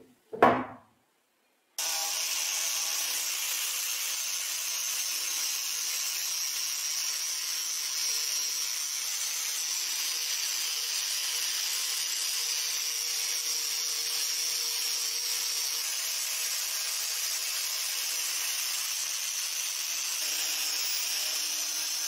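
Two knocks as a painted metal part is set down on a wooden bench, the second the loudest. Then, from about two seconds in, a Hitachi angle grinder runs steadily with its abrasive disc grinding rust off a bench grinder's cast metal housing, a steady high whine over grinding noise.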